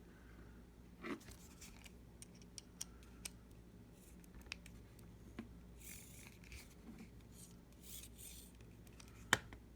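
Faint scraping and light clicks of a small precision screwdriver and its bit being handled against a screw, with a few short scratchy rubs and one sharper click near the end.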